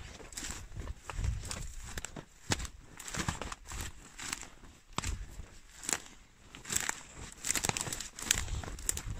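Footsteps through dry dead grass, leaves and twigs on a forest floor, crunching and crackling at each step.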